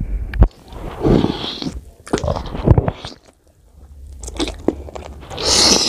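Close-miked eating of mutton curry and rice by hand: wet mixing and smacking, with bites and chewing on bone-in mutton giving sharp crunchy clicks. Near the end comes a louder, longer rushing sound.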